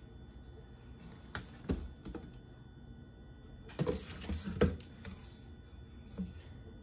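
Plastic hand-soap bottles clicking and knocking against each other and the cardboard box as one is lifted out, in a few scattered sharp taps with the loudest cluster about four seconds in.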